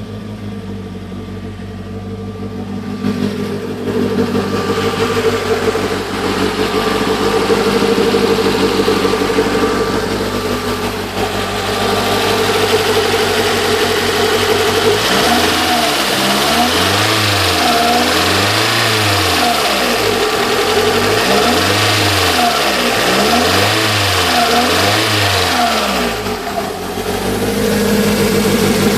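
Supercharged Toyota MR2's 1.6-litre four-cylinder engine with a rough idle, idling and then revved up and back down about five times in quick succession before it settles back to idle near the end.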